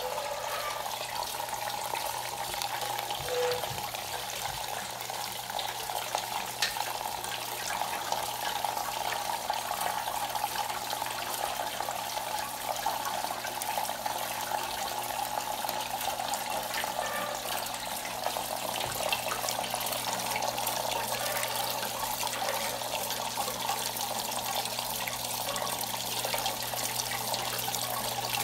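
Water pouring and splashing steadily in a metal fountain sculpture made of plumbing parts, falling from a faucet spout into a metal cup, with a low steady hum underneath.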